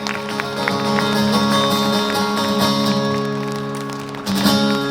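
Acoustic guitars playing the closing bars of a song, holding a chord, with a last chord strummed near the end and left ringing.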